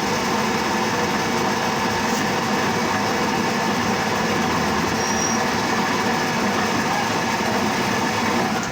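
Plastic scrap crusher running steadily: a continuous loud mechanical din with a few steady humming tones.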